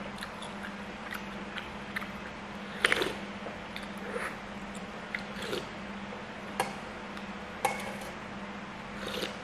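Eating sounds of noodle soup: a metal spoon clicking against a stainless steel bowl, with sips and chewing, the loudest about three seconds in. A steady low hum runs underneath.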